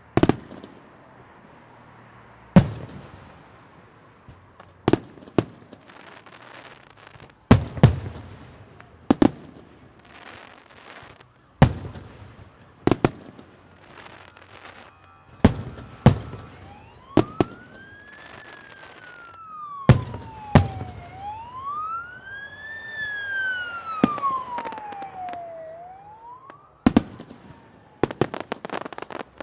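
Fireworks display: aerial shells bursting with sharp bangs every second or two, some with crackle after them. From about halfway through, a siren wails underneath, slowly rising and falling in pitch for several seconds.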